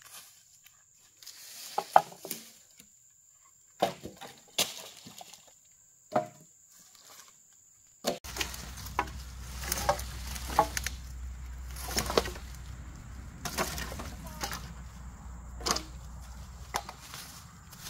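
A hand tool strikes into dry ground and debris a few separate times. Then dry bamboo pieces knock and clatter as they are picked up and handled, in many quick knocks.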